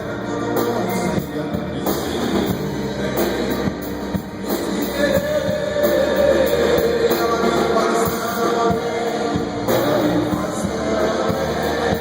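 A pop-rock song played with guitar, with singing.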